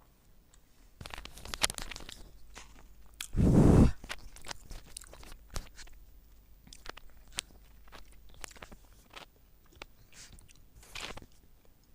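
Close-miked chewing of crispy sauced fried chicken wings: crackly crunches and sharp mouth clicks. A loud, deep burst about three and a half seconds in is the loudest sound, with another run of crunching near the end.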